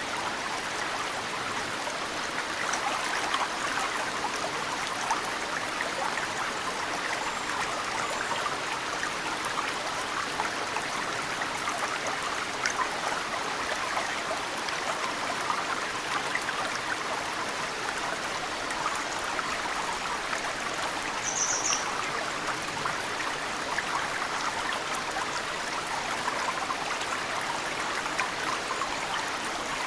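Mountain stream flowing steadily, with snowmelt dripping into it from tree roots as many small, quick drops. A single short, high bird chirp about two-thirds of the way through.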